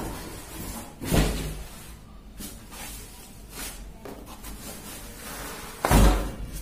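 Polystyrene foam packing block being worked off a boxed PC case: foam scraping and rubbing, with two loud bumps, one about a second in and one near the end.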